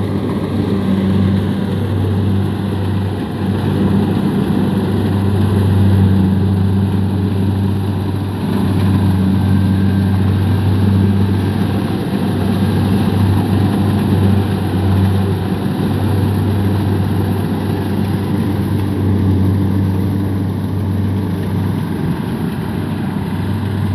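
Kubota DC-70 tracked combine harvester running steadily as it cuts rice in a boggy paddy: a continuous low engine hum with a second steady tone above it and a layer of machinery noise.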